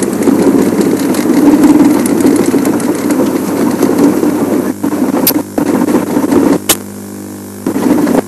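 Engine of an open safari game-drive vehicle running as it drives over rough bush track. Two sharp clicks come in the second half, and the engine drops quieter for a moment near the end.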